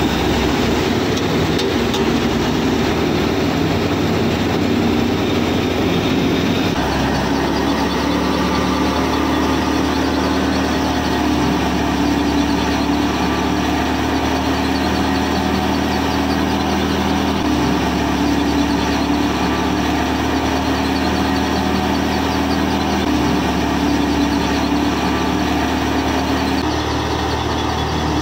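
A small motor-driven model thresher running steadily, a continuous mechanical hum as it threshes wheat straw. The hum changes abruptly in pitch a few times.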